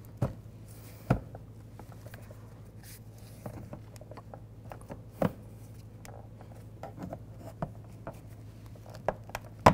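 Plastic trim tools working under a plastic interior door trim cover to pry it loose: a few sharp, scattered clicks and taps of tool on plastic with faint rubbing between, the loudest click near the end.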